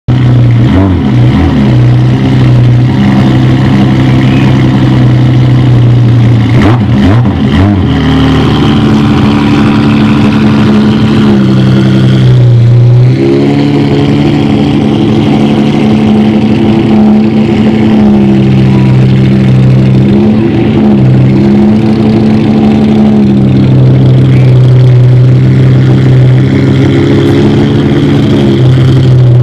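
Ferrari F50's V12 engine breathing through a Tubi aftermarket exhaust, idling loudly with quick throttle blips near the start and again about seven seconds in, and slight rises and falls in pitch later on.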